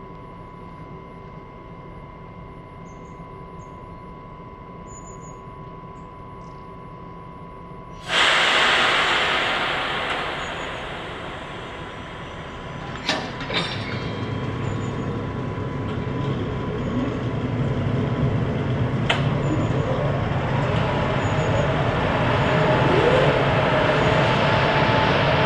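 A DB class 155 electric freight locomotive hauling a loaded freight train passes close by: after a quiet stretch it arrives abruptly about 8 seconds in, and the wagons then roll past with a steady rumble. A few sharp clicks of wheels over the rails and some faint wheel squeal sound among the wagons.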